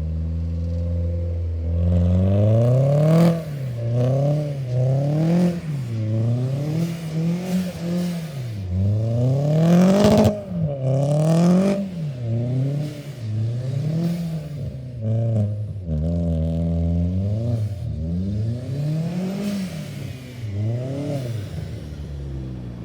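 Turbocharged 1.8-litre four-cylinder of a 2001 Audi A4 with a Garrett GT2860RS turbo and straight exhaust, revving up and down over and over, roughly once a second, while driven in snow. There is a sharp burst about three seconds in and the loudest one about ten seconds in.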